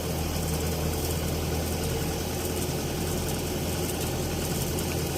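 Diesel engine of a Kubota tractor or combine harvester running steadily at low speed, with an even low hum that holds its pitch.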